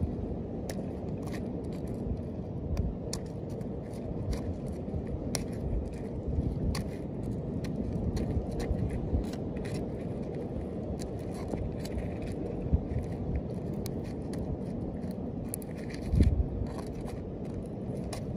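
A small blade scraping debris off a turtle's shell, giving repeated short scratchy clicks over a steady low rumble, with a louder low thump near the end.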